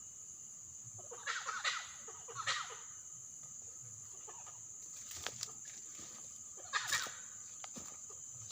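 Fowl-like animal calls in rattling, clucking bursts: one about a second in, another a second later, and a third near the end, over a steady high-pitched hum.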